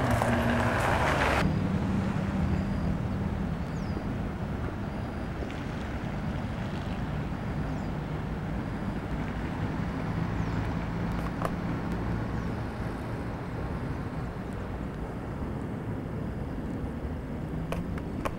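Outdoor rumble of distant road traffic and wind on the microphone. A louder hiss stops abruptly about a second and a half in, then a steady low rumble and hum carry on with a few faint clicks.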